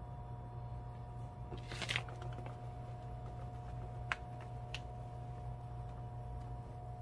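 Brief rustle of a plastic bag of frying powder being handled about two seconds in, then two sharp ticks as the powder is shaken out over the mushrooms, over a steady hum.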